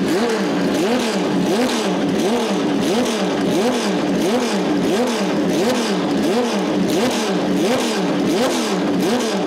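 Porsche 917's air-cooled flat-12 engine being blipped at a standstill, again and again about twice a second, its pitch climbing quickly with each blip and falling back.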